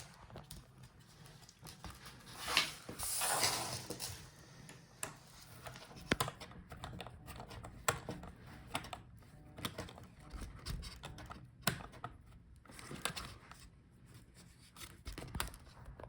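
Scattered light clicks and taps of plastic laptop parts being handled, with a scraping rustle about two to four seconds in.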